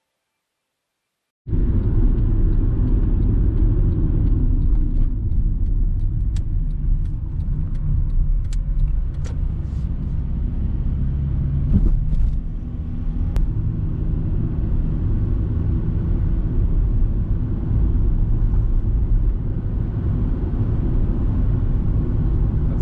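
Steady low rumble of road and engine noise heard inside a moving car. It starts abruptly about a second and a half in, with a few faint clicks in the middle.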